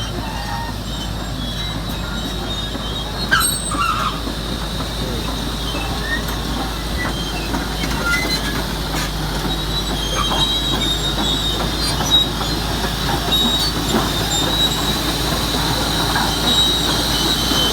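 Komatsu D375A crawler bulldozer at work: heavy diesel engine running steadily under load, with the steel tracks squeaking and clanking over it. It grows slightly louder toward the end.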